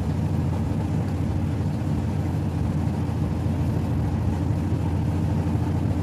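Mademsa top-loading washing machine in its spin cycle, the drum spinning with a steady low hum and rumble.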